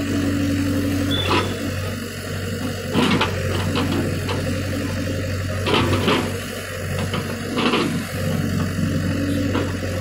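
JCB 3DX backhoe loader's diesel engine running steadily under digging load. Four sharp knocks and scrapes come from the backhoe bucket biting into broken concrete and soil.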